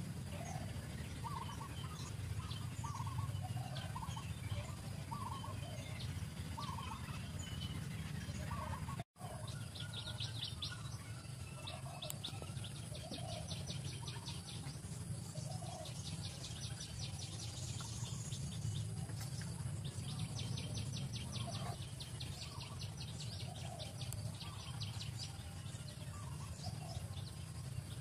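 Birds calling over a steady low rumble: short calls repeating about once a second, joined from about ten seconds in by stretches of a rapid high trill. The sound drops out for an instant at about nine seconds.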